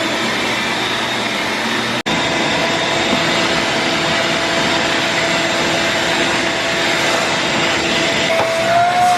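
A 12-gallon Ridgid shop vac motor running steadily with a loud rushing whine. It breaks for an instant about two seconds in, and a whistling tone in its note wavers upward near the end.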